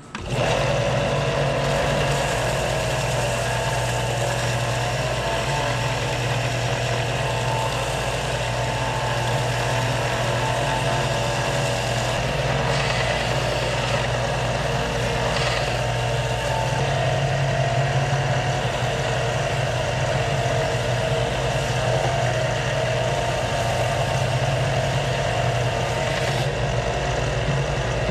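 Benchtop belt sander running steadily with a constant hum, a hardwood dowel pressed against the moving belt to grind and taper its end.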